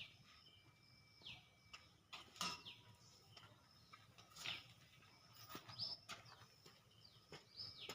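Faint bird calls: short high notes sliding downward, repeating every second or two.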